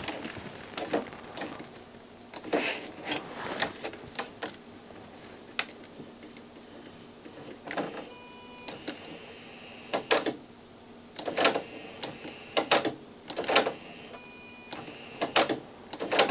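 Grundig FineArts CD11 CD player's disc-drawer mechanism: many plastic clicks and knocks as the tray is worked by hand and closes, with two brief small-motor whines about eight and fourteen seconds in. The drawer motor seems too weak to drive the tray.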